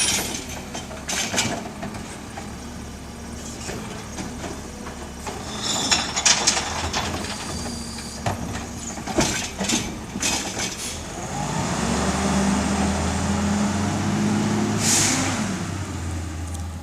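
Natural-gas garbage truck working a trash pickup: the engine runs under scattered knocks and clangs, then speeds up for several seconds in the second half. A sharp hiss of air, typical of the air brakes, comes near the end.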